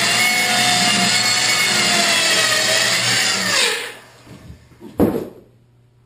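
Corded circular saw cutting through half-inch OSB, blade set just barely through the material. A little over halfway through, the saw is released and winds down with a falling pitch, then a single sharp knock follows about five seconds in.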